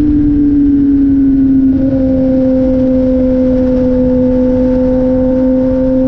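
Kawasaki ZX-10R's inline-four engine running at steady highway cruising revs, its pitch easing down slightly over the first couple of seconds and then holding, with wind noise underneath.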